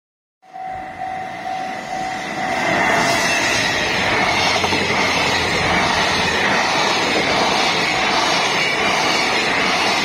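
Freight train of container wagons running past at speed, a loud, steady rolling rumble of wheels on rail. A steady tone sounds for the first two seconds as the sound comes in.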